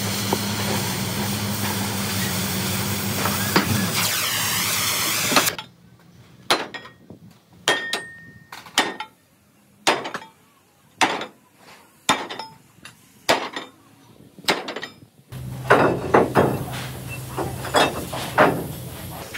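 A hand hammer striking steel in a rim repair: about a dozen irregular blows, roughly one a second, some of them ringing. Before them, a loud steady hiss over a low hum from a workshop machine cuts off suddenly. A low hum comes back under more blows near the end.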